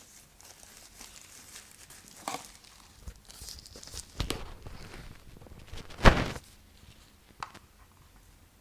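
Unboxing noise: packaging rustling and crinkling as a docking station is taken out of its box, with scattered light knocks and one sharper thump about six seconds in.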